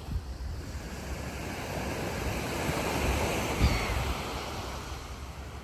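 Sea waves breaking and washing on the shore, the surf swelling to its loudest about three and a half seconds in and then easing off.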